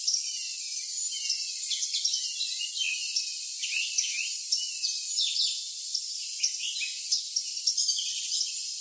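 Morning songbirds singing many short sweeping chirps and whistles over a steady high cricket trill, with no low sound at all, so it sounds thin and high.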